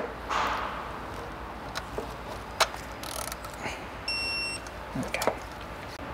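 Digital torque wrench tightening an oil cooler's E12 Torx screw, with a few sharp clicks from the wrench and socket. About four seconds in it gives one short electronic beep, the signal that the set torque of 16 Nm has been reached.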